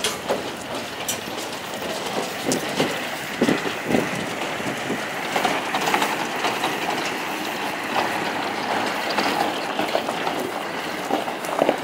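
V8 stock truck and trailer unit driving past and pulling away, its engine running under a steady rattle and clank of the stock crates and trailer, with scattered knocks.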